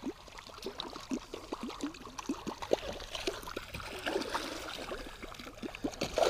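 Water gurgling and splashing in many small quick spurts as a topwater musky lure is pulled through the surface in a figure-eight beside the boat.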